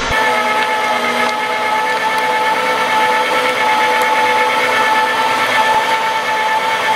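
Electric meat grinder's motor running steadily with an even whine and a few faint clicks.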